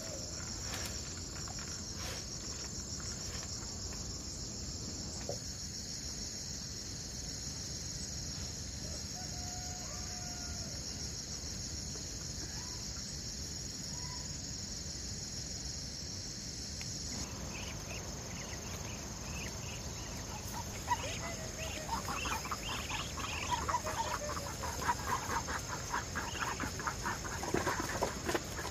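Insects shrilling steadily in a high, pulsing band through the first half, fading after about 17 seconds. From about 21 seconds on, chickens clucking in quick, busy bursts.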